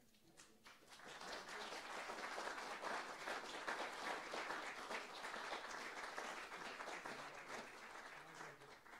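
Audience applauding. A few scattered first claps build into dense, steady clapping from about a second in, which dies away near the end.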